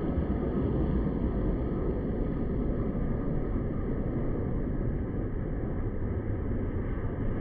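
Steady low rumble of an airliner's engines and rushing air, with no change in pitch or level.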